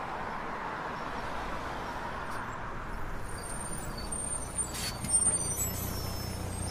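Outdoor road ambience: a steady hiss, with a motor vehicle's low engine hum growing stronger in the second half. A few faint high peeps and a brief click come near the middle.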